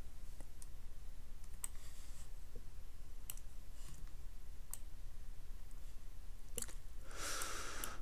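Scattered single clicks of a computer mouse and keyboard, a few seconds apart, over a faint steady low hum. A soft hiss comes near the end.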